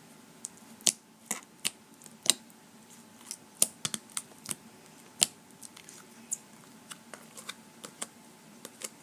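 Clear fishbowl slime with foam beads being squeezed and worked by hand, making irregular sharp clicks and pops, about twenty of them.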